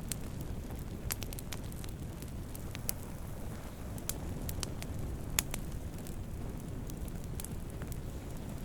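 Wood fire burning with a steady low rumble and irregular sharp crackles and pops, the loudest pop about halfway through.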